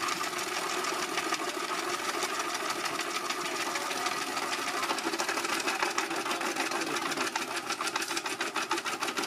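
A small machine running with a fast, even clatter of many clicks a second over a steady hum.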